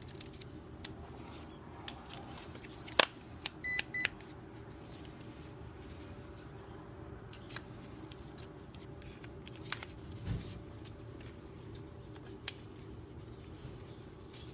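Air conditioner outdoor unit running with a steady low hum on its newly replaced capacitor, with a sharp click about three seconds in, a brief electronic beep just after, and a few lighter clicks.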